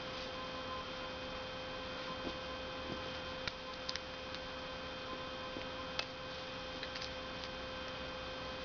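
Steady electrical mains hum, with a few faint clicks about halfway through.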